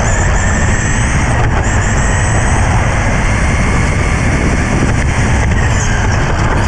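RC touring car driving fast on an asphalt track, heard from a camera mounted on the car: a whine from the car that rises and falls in pitch several times as it speeds up and slows down, over a heavy, steady low rumble.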